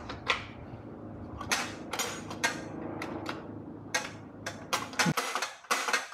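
Sharp metallic clicks and clinks, about a dozen in a few seconds, as a steel heater-valve arm is worked by hand onto a replacement air-cooled VW heat exchanger, over a low hum that cuts off about five seconds in.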